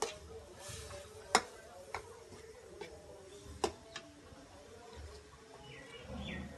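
Metal spatula clinking and scraping against a steel karahi as onions are stirred, giving about five sharp clicks at uneven intervals, the loudest about a second and a half in.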